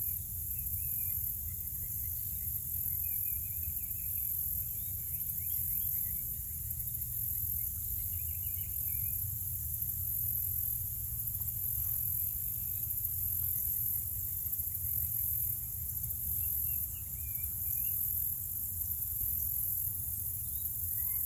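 Summer insect chorus trilling high and steadily, pulsing evenly, with a bird singing short phrases a handful of times over a low, steady rumble.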